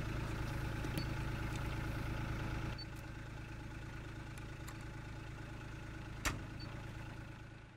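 Utility vehicle engine idling with a steady hum, which drops in level a little under three seconds in. A single sharp click sounds about six seconds in.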